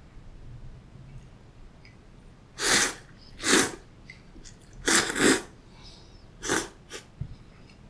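A person slurping cold soba noodles up from the dipping cup: five loud, sharp sucks beginning about two and a half seconds in, the last one shorter. A couple of faint clicks follow near the end.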